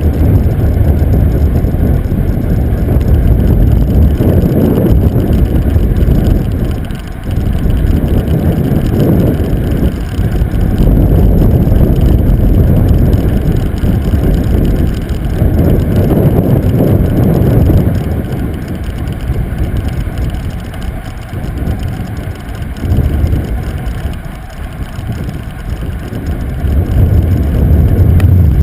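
Wind buffeting the microphone of a camera on a moving bicycle: a loud, low rumble that swells and dips every few seconds.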